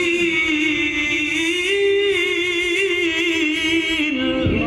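A man reciting the Quran in the melodic tajwid style, holding one long ornamented note with slight wavers in pitch, amplified through microphones. The note steps down and ends shortly before the end.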